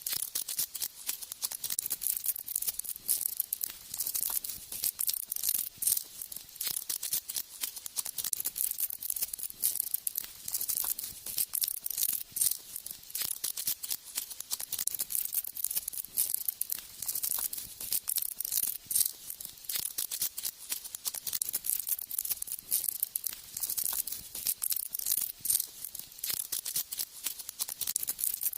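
Animals feeding on ants: a continuous, dense crackling of many small sharp clicks and crunches, mostly high-pitched.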